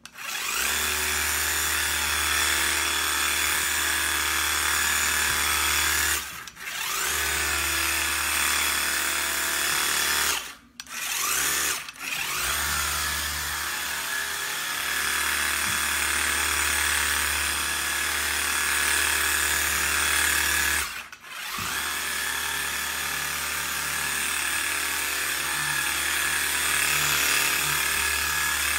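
Carpet-cleaning pre-spray wand spraying, driven by a running pump motor: a steady low hum under a loud hiss. It cuts out briefly about four times, then starts again.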